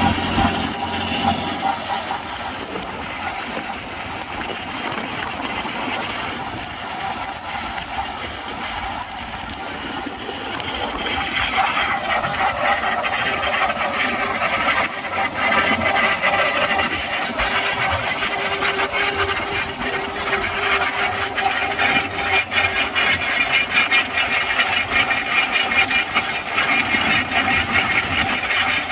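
Massey Ferguson 9500 Smart tractor engine running steadily under load as it drives a chain trencher cutting a trench through soil, with the trencher's chain and soil adding a gritty rattle. The sound gets louder about twelve seconds in.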